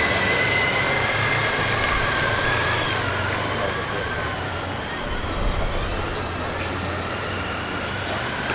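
Vehicles of an arriving motorcade running, a low engine rumble under crowd noise, with a high steady tone that wavers slightly and fades out about halfway through.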